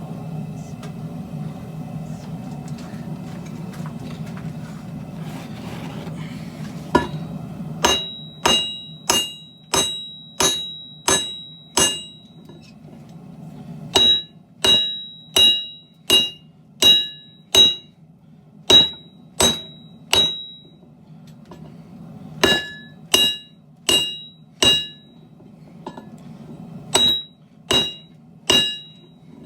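Hand hammer striking a hot 7-layer Damascus steel billet on an anvil to draw it out. The blows start about seven seconds in, come a little over one a second in runs of four to nine with short pauses between, and each one rings. A steady low hum sits underneath.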